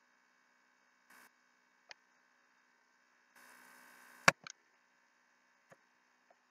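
Computer mouse clicking, a few sharp single clicks. The loudest comes about four seconds in and is followed at once by two lighter ones. Two short stretches of faint hiss come and go.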